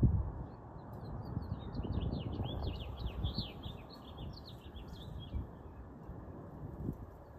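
A bird sings a fast twittering phrase of many short, quick chirps, lasting about two and a half seconds, over a steady low rumble. A thump comes right at the start.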